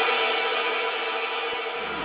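Background music in a break without beat or bass: held tones that slowly fade.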